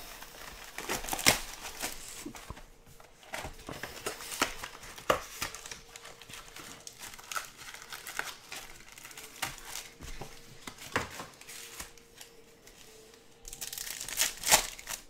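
Plastic wrapping on a Topps Chrome hobby box crinkling and tearing as the box is unwrapped and opened, with scattered taps and rustles. Near the end a card pack's wrapper is ripped open, the loudest crinkling.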